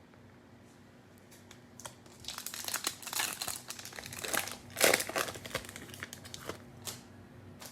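Cellophane pack wrapper being torn open and crumpled, a dense crinkling that starts about two seconds in and peaks near the five-second mark.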